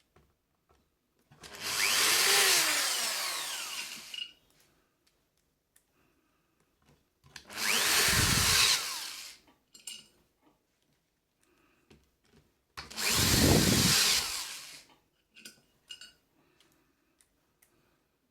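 Electric screwdriver driving screws into the home theatre's back panel: three runs of about two seconds each, its motor whirring with a pitch that slides as the screw seats, with small clicks of handling in between.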